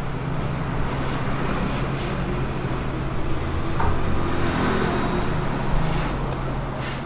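A metal ring cutter pressed down through rolled dough onto a floured table, making short scraping swishes a few times, over a steady low hum.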